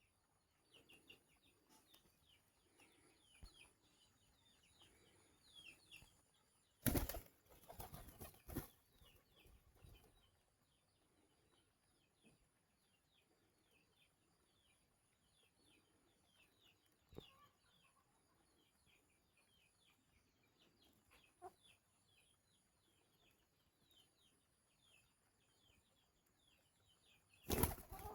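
Poultry calling in many faint, quick high chirps throughout, with short bursts of wing flapping about seven and eight seconds in and again near the end.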